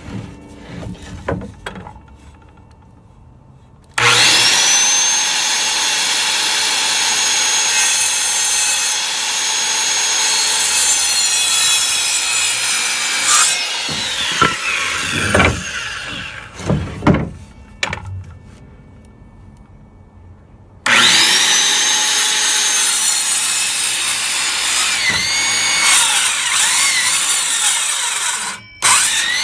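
Corded circular saw cutting 2x4 lumber, twice. About four seconds in, the motor starts with a rising whine and runs through the board for about nine seconds, then winds down. After a few knocks of wood being handled, a second cut starts about twenty-one seconds in and runs until just before the end.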